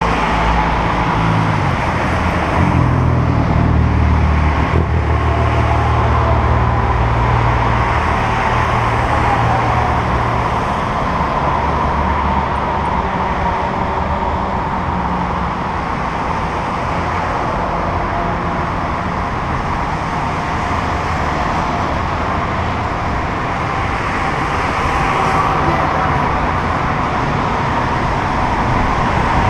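Road traffic on a multi-lane city expressway: cars passing close by, with wind rushing over the microphone of a camera riding on a moving bicycle. A low rumble is strongest through the first ten seconds or so.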